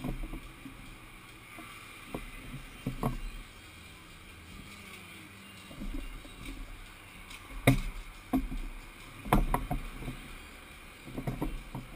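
Irregular knocks and rubbing of hands handling a motorcycle's fairing and windscreen close to a bike-mounted camera, over a low steady rumble. The loudest knock comes about two-thirds through, and a few more cluster near the end.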